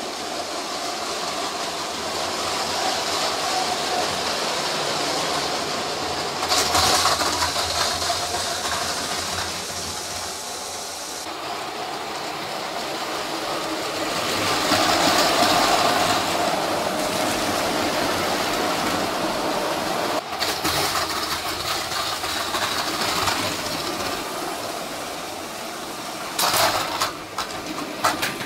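LEGO Horizon Express train running on plastic track: a steady electric-motor whir with wheel rumble, rising and falling as it passes, then a few sharp plastic clatters near the end as the cars derail at the switches.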